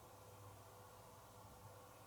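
Near silence: faint steady hum and hiss from the machine's audio line.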